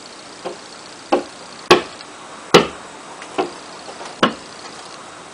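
Six sharp knocks or taps, irregularly spaced about half a second to a second apart.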